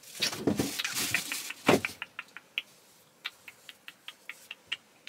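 Kissing sounds from pursed lips given to a pet budgerigar perched on a finger: a soft rustle at first, then a run of short, high kiss smacks, about three a second.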